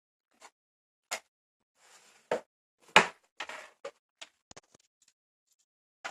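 Scattered clicks and knocks from objects being handled and set down, with a few short rustles in between; the loudest knock comes about three seconds in.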